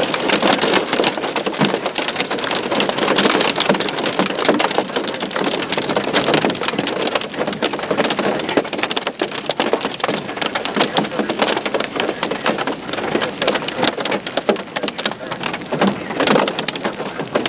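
Hailstones pelting hard surfaces in a hailstorm: a dense, continuous clatter of sharp impacts that surges and eases slightly throughout.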